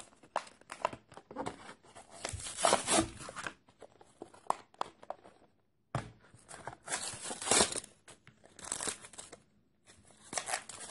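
Toy box packaging being torn open, tearing and crinkling in several spells, with a short break about six seconds in.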